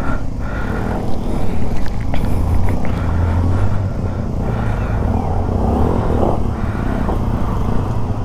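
Motorcycle engines running at low speed as two bikes ride slowly up a rough dirt trail, a steady low rumble.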